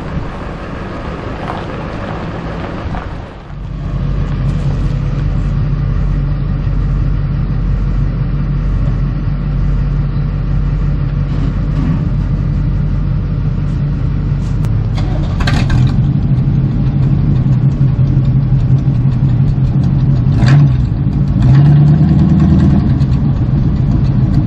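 Truck engine running steadily, with a short dip in level about three seconds in and then running louder; there are two brief sharp clanks later on.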